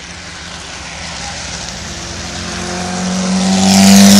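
Hill-climb race car approaching up the course and passing close, its engine note holding a steady pitch and growing steadily louder, loudest near the end as it goes by.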